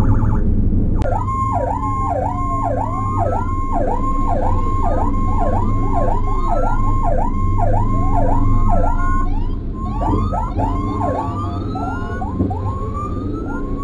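Emergency-vehicle sirens from the convoy. From about a second in, an electronic siren yelps fast, its pitch dropping and climbing back about twice a second. From around ten seconds in, other sirens overlap it with rising sweeps, over the low drone of the vehicle.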